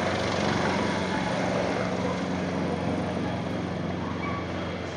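Helicopter rotor and turbine engine running steadily, gradually getting quieter.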